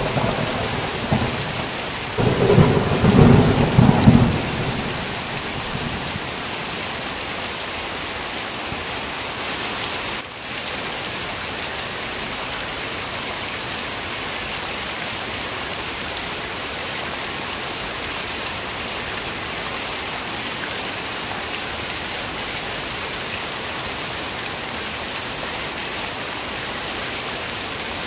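Heavy rain falling in a steady hiss. A rumbling thunderclap comes about two seconds in and is the loudest sound, dying away by about five seconds.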